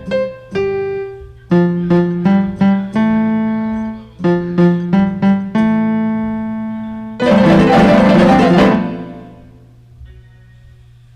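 Instrumental music: a simple melody of separate ringing notes, one after another, then a loud, dense crash of sound about seven seconds in that dies away, with a few faint notes near the end.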